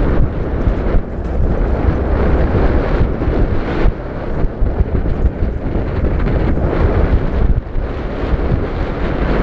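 Wind buffeting the microphone over the running of an open-sided safari vehicle driving on a dirt track. The noise is loud and uneven, rising and dipping in gusts.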